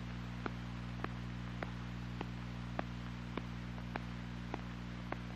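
Steady electrical hum with a faint hiss and a sharp click repeating evenly a little under twice a second: the background noise of an old film's optical soundtrack with no narration.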